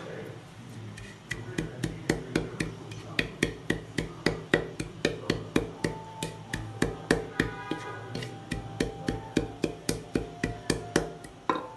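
Wooden pestle pounding ginger and spices in an unglazed clay pot: a steady run of knocks, about three to four a second, starting about a second in.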